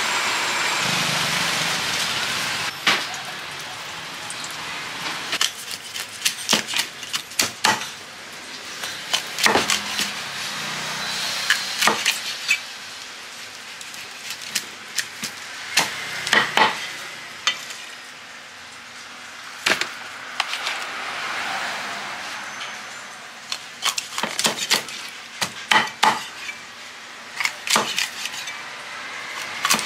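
A cleaver chopping through a raw fish on a wooden chopping block, cutting it into thick steaks: sharp knocks of the blade on the wood, coming irregularly and often in quick runs of two or three. A steady hiss sits under the first couple of seconds.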